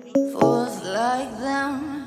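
Background music: a song with a gliding sung or melodic line over sharply struck notes.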